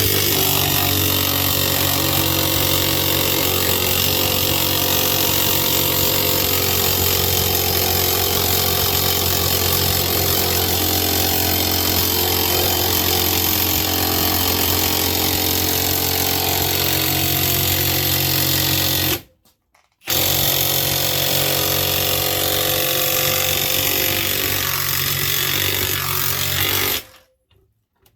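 Ryobi 18V One+ HP brushless 1/2-inch impact wrench hammering continuously on high torque on a grade 8 fine-thread nut and bolt. It stops for about a second about two-thirds of the way through, then starts again and stops near the end. The bolt does not break: the bolt's and nut's threads are stripping.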